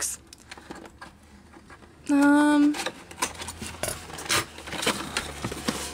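Cardboard toy packaging being handled and pulled open: flaps rustling with scattered light clicks and taps. About two seconds in, a person hums briefly at one steady pitch.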